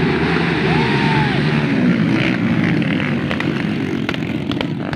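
Several motocross dirt bike engines running hard together as a pack of bikes races past on a dirt track.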